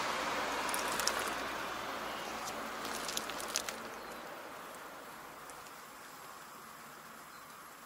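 Road noise from a passing vehicle, a steady hiss that fades away gradually, with a few light clicks about a second in and again around three seconds in.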